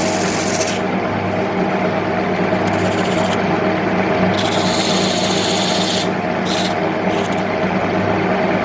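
Wood lathe motor running steadily with a hum, while a tool works the spinning mahogany in bursts of hissy scraping, the longest about halfway through.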